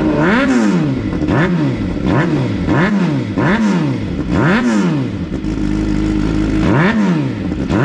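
Suzuki GSX-R 600 inline-four with a cat-delete mid-link pipe and M4 slip-on exhaust, revved in about six quick throttle blips roughly a second apart, with a short stretch of idle before a last blip near the end.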